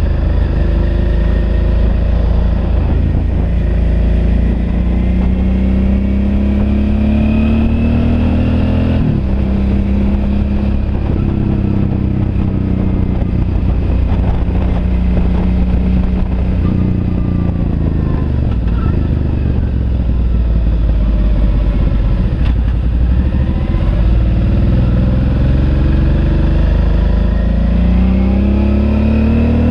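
Suzuki V-Strom DL650's V-twin engine under way, its pitch climbing for several seconds, then dropping sharply about a third of the way in. It runs steadily, eases down past the middle, and climbs in pitch again near the end.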